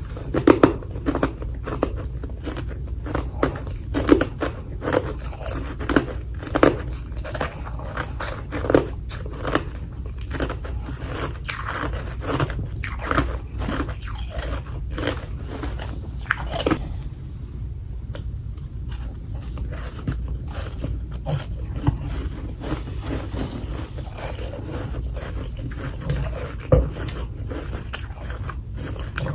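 Close-up biting and chewing of humidifier freezer frost chunks: a quick run of crisp crunches, thinning to softer chewing about halfway through. A steady low hum runs underneath.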